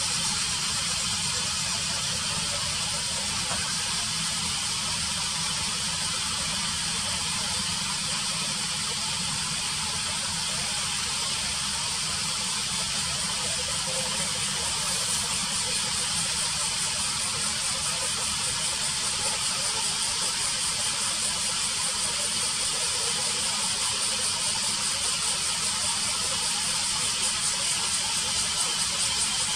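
Steady outdoor ambience: a continuous high-pitched buzz over a low rumble, unchanging throughout.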